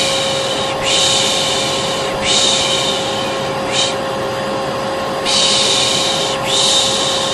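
A hair dryer runs steadily with a constant motor whine, while a person repeats a 'shh' shushing sound about every second and a half over it. This is white noise for soothing a colicky baby.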